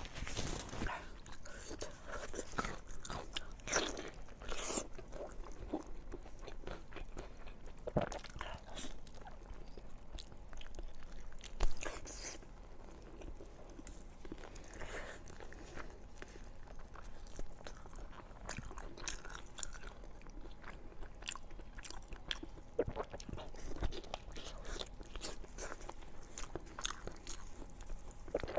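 Close-miked chewing and biting on beef bone meat, with irregular wet crunches and clicks; one sharp crunch about 12 seconds in is the loudest.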